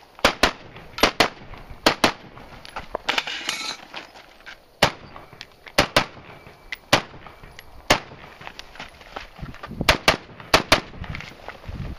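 Rapid rifle gunfire at a shooting stage: about fifteen shots in singles and quick pairs at uneven spacing, with a short pause and a brief hiss about three seconds in.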